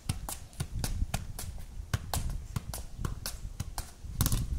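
Football being juggled with the feet and thighs: soft, regular taps of the ball, about three to four a second, with a short, louder flurry of hits near the end.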